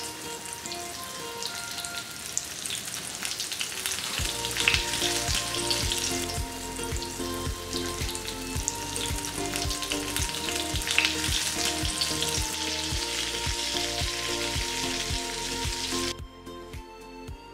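Coated pomfret fish shallow-frying in hot oil in a pan, a steady sizzle with fine popping, over soft background music with a beat. The sizzle cuts off suddenly near the end, leaving only the music.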